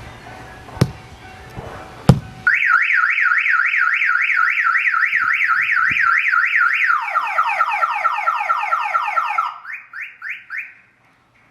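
Two sharp knocks, then a Compustar car alarm siren going off as its shock sensor is tripped. The siren runs through its tones: a fast up-and-down warble, then repeated falling sweeps, then a few short rising chirps before it cuts off near the end.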